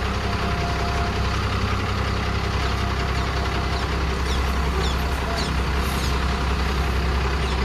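Heavy truck's diesel engine idling steadily, a low even rumble, with a few short high chirps about halfway through.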